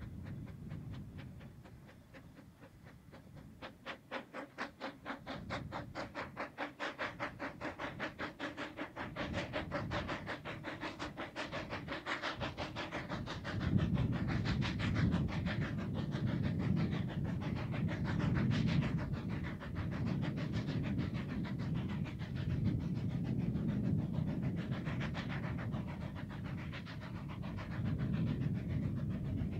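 Narrow-gauge steam locomotive chuffing as it pulls away with a goods train, the exhaust beats getting quicker as it gathers speed. About halfway through, a louder low rumble takes over and the beats fade behind it.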